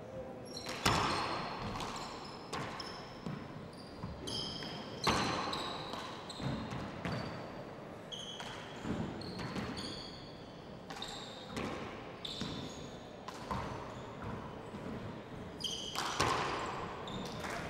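Handball rally: the ball is struck by hand and cracks off the court walls and floor every second or so, each hit ringing briefly in the hall. Between the hits, sneakers squeak in short chirps on the wooden court floor.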